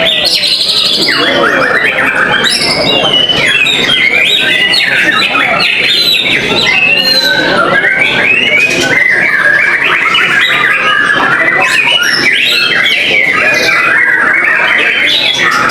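Several white-rumped shamas (murai batu) singing at once: a dense, unbroken tangle of quick whistles, trills and chattering phrases.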